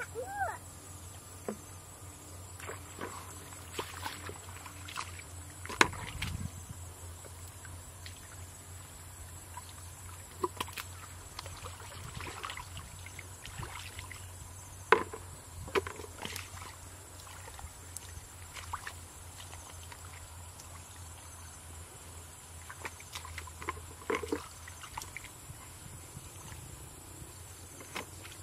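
Hands sloshing and splashing through shallow muddy water and mud while groping for fish, in irregular bursts with a few sharper splashes about six and fifteen seconds in.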